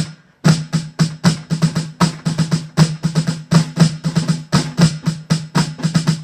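Rudimental snare drum played at a moderate tempo: a run of flams and flam drags, crisp strokes with a low drum ring under them, mixing accented and softer notes in an uneven rudimental rhythm.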